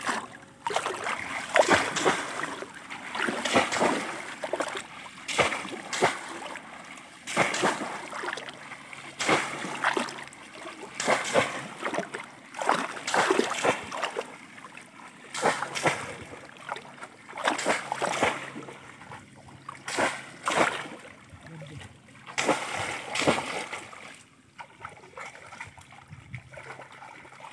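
Bamboo cone fish traps being plunged again and again into shallow muddy river water, each thrust a loud splash, about one every two seconds and sometimes two close together. The splashing dies down to a gentle slosh of water about 24 seconds in.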